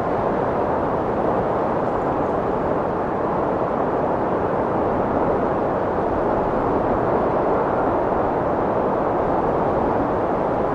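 Strong wind blowing steadily, a dense rushing noise with no gusts or breaks.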